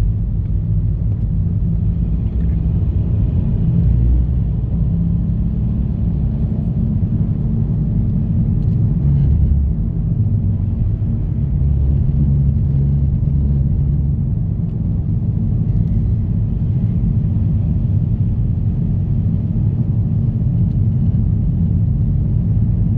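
Steady low rumble of a car driving, heard from inside the cabin, its tyres running on a snow-covered road.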